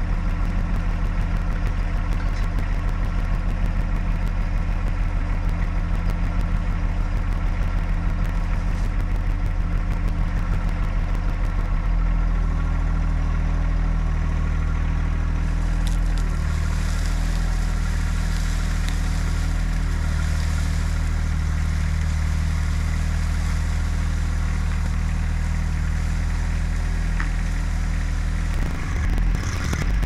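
Compact tractor's engine running steadily, then working harder from about twelve seconds in as it takes up the strain on a heavy log pulled on a strap. From about sixteen seconds a scraping hiss joins as the log drags over pine-needle ground.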